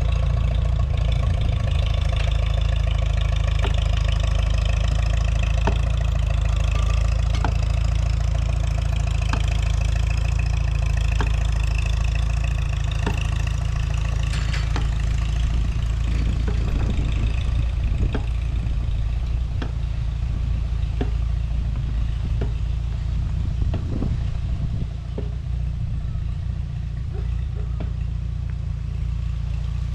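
An engine running steadily at a constant speed over a heavy low rumble, with faint regular ticks in the second half.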